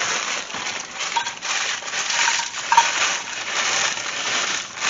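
Crushed crackers poured from a plastic bag into a nonstick skillet, the crumbs rattling and pattering onto the pan with a crinkle of the bag.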